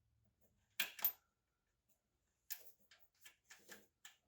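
Small metal hardware clinking as washers and bolts are handled and fitted onto a hood-shock bracket: two sharp clicks about a second in, then a quick run of lighter clicks near the end.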